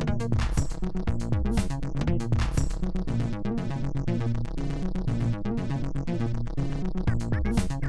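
Electronic music with a steady drum-machine beat, a synthesizer melody and a moving bass line.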